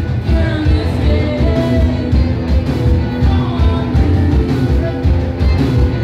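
Live rock band playing: electric guitars, bass guitar and drums with a steady heavy beat, and a sung vocal line over them.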